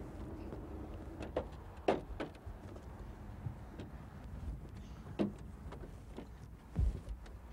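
Clunks and knocks of a semi-truck's cab door and steps as people open the door and climb up into the cab, over a low steady rumble.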